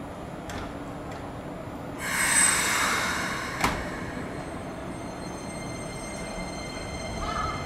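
Keikyu electric train at a station with a steady hum. A sudden loud hiss comes about two seconds in, lasts over a second, and ends in a sharp click.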